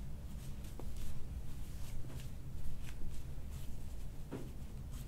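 Low steady room hum with soft rustling of hands and clothing and a few faint clicks, during a chiropractic shoulder adjustment.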